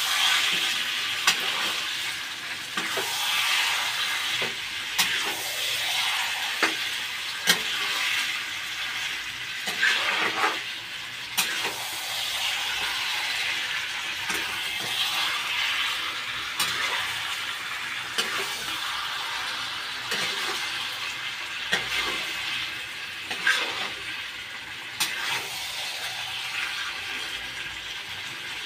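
Chicken in a thick masala sizzling in a kadai while a metal spatula stirs it, with irregular clicks and scrapes of metal on the pan over a steady sizzle. The masala is being stirred so the spices don't stick.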